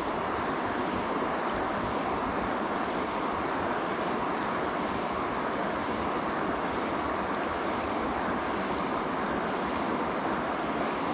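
Steady rushing of river water, an even, unbroken wash of flowing current.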